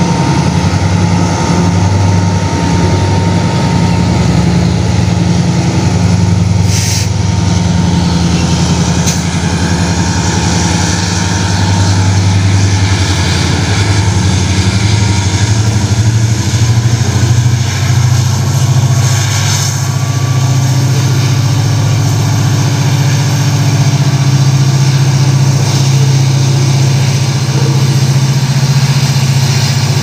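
Freight train passing close by: the diesel locomotives' engines run with a steady low drone while open gondola wagons roll past. Two sharp clicks come about seven and nine seconds in.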